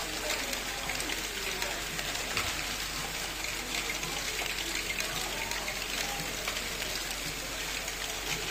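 Steady, dense rattle of many small plastic LEGO balls clicking against each other and against the moving LEGO Technic steps of a Great Ball Contraption step-lifter module, a continuous run of tiny clicks.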